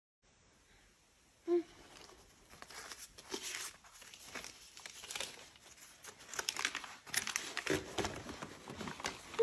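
Sheets of painted paper rustling and crinkling as they are handled. A baby makes a short vocal sound about a second and a half in.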